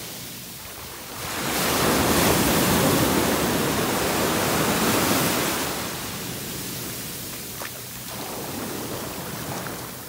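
Sea surf breaking and washing up the shore: a wave's rush swells about a second in, eases after five or six seconds, and a smaller wash comes near the end.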